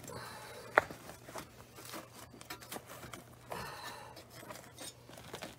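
Old seat bottom cover and foam being worked loose from a C3 Corvette seat's steel zig-zag spring frame: faint scraping and rustling, with one sharp click a little under a second in.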